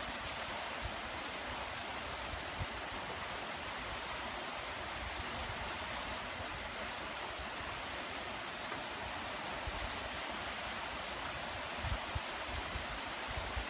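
Light, steady rain falling on grass, leaves and wet pavement: an even, unbroken hiss. A few soft low thumps come near the end.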